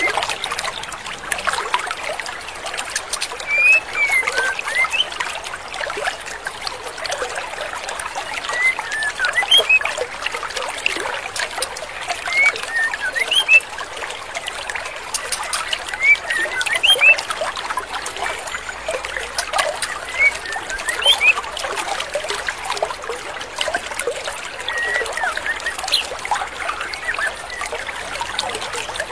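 Female white-rumped shama giving short, scattered chirps, one every second or so, over the steady rush of a stream.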